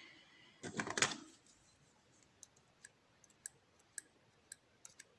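Hands handling a disassembled pin-tumbler lock: a brief clatter about a second in, then a string of faint, sharp, irregular clicks.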